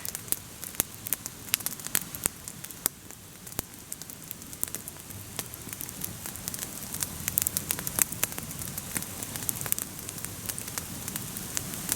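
Wood campfire crackling, with many sharp, irregular pops throughout.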